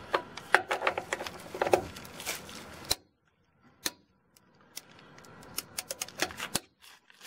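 Ratchet head of a click-type torque wrench clicking rapidly as it is worked back and forth on a wheel lug nut, in two spells with a short pause between them.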